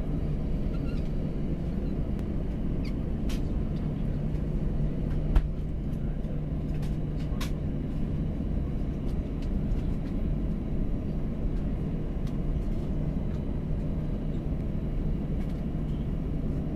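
Cabin noise inside an Airbus A321 taxiing on the runway: a steady low rumble from the engines and airframe with a constant hum, not building up. A few light clicks and rattles, and one sharper knock about five seconds in.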